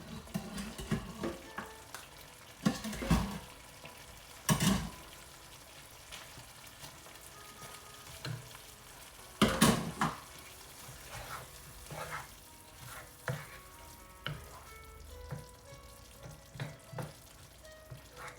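Utensil stirring and scraping through a pan of vegetables and rice frying in an oily coconut sauce, with frequent light clicks against the pan and two louder knocks, about a quarter and about half way through, over a faint sizzle.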